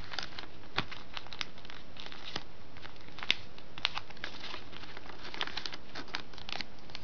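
A folded sheet of paper crinkling and crackling as fingers press and crease the folds of a paper airplane, a scatter of small crackles with a few sharper ones about one, three and four seconds in.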